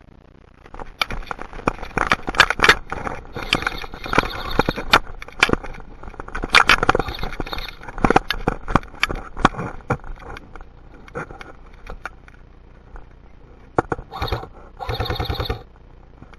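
Sharp clicks and cracks at irregular intervals, the camera's own clicking mixed with airsoft gunfire. Near the end come two short rapid bursts, the second a fast even run of shots lasting about half a second, typical of an airsoft rifle firing on full auto.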